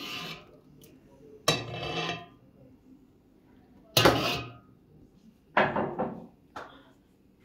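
Three loud clattering knocks, each ringing out briefly, about two seconds apart, with a small knock shortly after the third.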